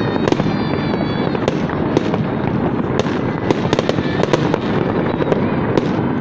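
Fireworks salute going off in a dense, continuous barrage: many sharp bangs over steady crackling, with a brief high whistle about half a second in.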